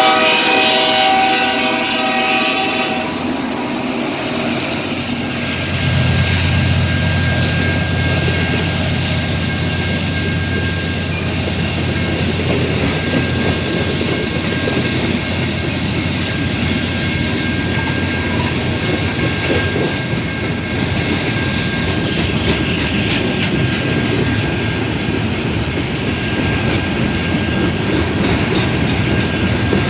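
BNSF freight train passing close by: the locomotive horn finishes a blast in the first three seconds, then tank cars and coil cars roll past with a steady rumble and the clickety-clack of wheels over rail joints. A low drone grows louder about six seconds in.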